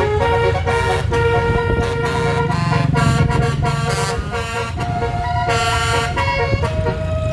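Tour bus's musical 'telolet' air horn playing a tune, its notes stepping from pitch to pitch every half second or so, over the steady low rumble of the bus engine and traffic.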